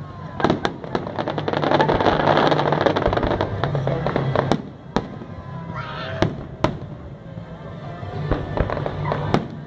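Aerial fireworks display: shells bursting with sharp bangs over a dense crackle for the first few seconds, then scattered bangs and a few whistles.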